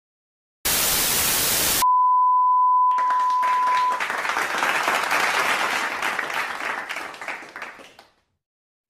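Intro sound effects: a sudden burst of loud static hiss, then a steady high beep held for about two seconds, then a dense crackling noise like applause that fades away near the end.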